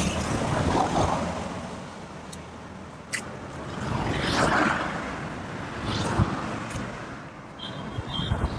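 Road traffic: several vehicles go past one after another, each swelling and fading as a rush of noise over a steady low rumble, with a brief high-pitched tone near the end.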